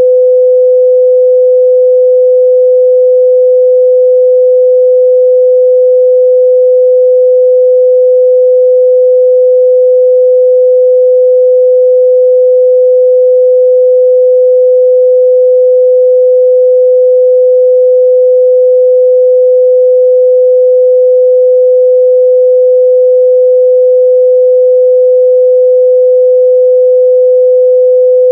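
A pure 505 Hz sine-wave test tone, one steady unchanging pitch held at a constant loud level.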